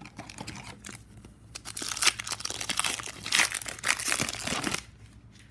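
Foil wrapper of a trading card pack crinkling and tearing as the pack is pulled from the box and opened, from about a second and a half in until near the end.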